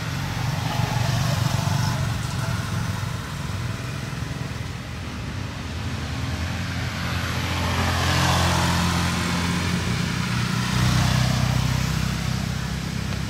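Motor vehicle engines running close by, their low drone shifting in pitch a few times, with one vehicle passing about eight seconds in.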